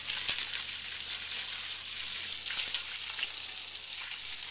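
A horse urinating: a steady stream splashing and hissing onto wet dirt.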